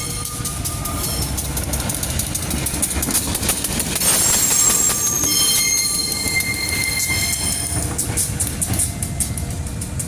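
CC201 diesel-electric locomotive passing close by: a steady low engine rumble, wheels clacking sharply over rail joints and points, and high thin squealing tones from the wheels. It is loudest as it passes closest, about four seconds in.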